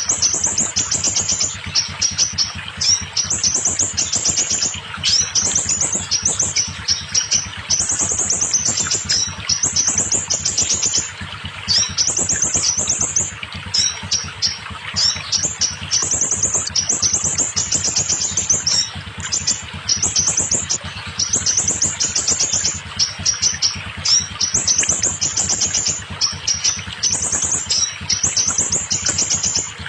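Scarlet minivet song: fast, high chirping trills in short phrases, repeated almost without a pause, over a steady hiss.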